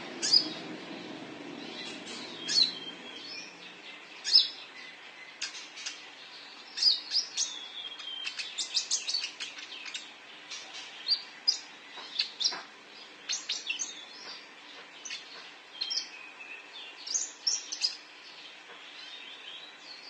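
Konin sunbird giving sharp, high chirping calls in irregular runs, some in quick clusters of several notes. This is its calling voice, used to lure other birds.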